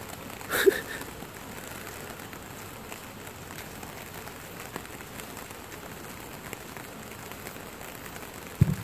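Steady rain falling on the wet field and pavement. A short, sharp sound cuts through about half a second in, and a single low thud comes near the end.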